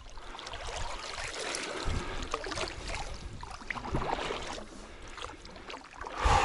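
Kayak paddle strokes: a double-bladed paddle dipping and pulling through the water on alternate sides about every two seconds, with water trickling off the blades between strokes. The last stroke, near the end, is the loudest splash.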